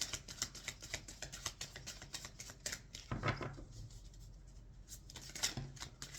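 Tarot cards being shuffled by hand: a quick, uneven run of soft card clicks and flutters that thins out for about a second past the middle.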